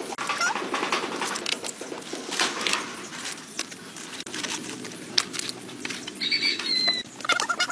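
Rustling and scattered clicks from hands handling raw pork skin and live crabs as they are packed into a pig carcass, with a short high squeak about six seconds in.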